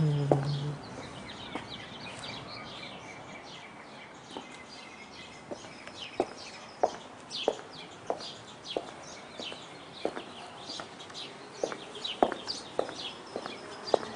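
Small birds chirping steadily with many short high chirps. From about five seconds in, hard footsteps click on brick pavers at a walking pace, about one and a half steps a second.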